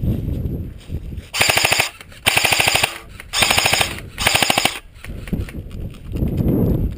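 Airsoft gun firing four quick full-auto bursts, each about half a second long, a rapid even rattle of shots.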